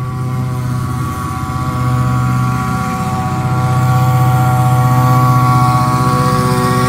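Truck-mounted mosquito fogger passing close while spraying: its engine and blower drone steadily on one pitch. The drone grows louder about two seconds in and is loudest near the middle to end as the truck goes by.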